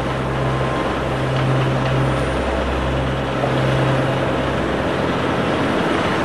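Small yard tow tractor's engine running with a steady low hum that fades out about three and a half seconds in, under a loud steady wash of outdoor noise.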